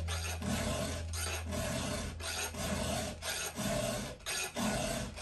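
Hand file rasping across the cutters of a Husqvarna 2101 chainsaw chain in repeated strokes, about one a second, sharpening a dull chain that has never been filed.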